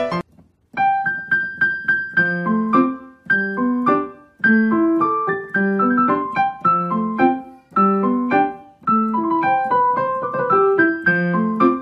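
Background keyboard music with a piano sound: a light, repeating tune of quick notes over a bouncing bass line. It breaks off briefly just after the start, then carries on.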